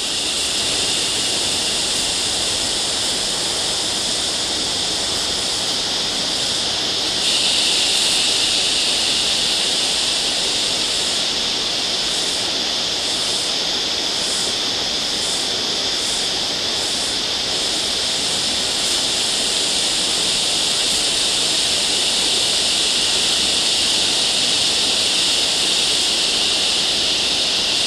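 Creek water running over rock, under a loud, steady, high-pitched chorus of cicadas. The buzzing gets louder about seven seconds in and pulses about one and a half times a second for several seconds around the middle.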